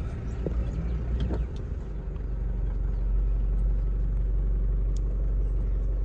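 Car running, heard from inside the cabin as a steady low rumble.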